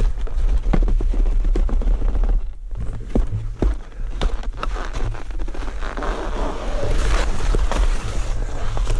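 Skis sliding and scraping over packed snow, with a steady low rumble of wind on the microphone and many sharp knocks. The snow hiss drops away briefly about a third of the way in and grows louder from about two-thirds in.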